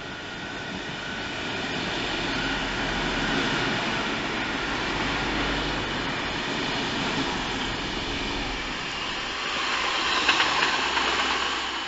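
Red regional multiple-unit train running on the tracks and passing close beneath, growing louder over the first few seconds and staying steady. About ten seconds in comes a flurry of rattling clicks from the wheels and running gear.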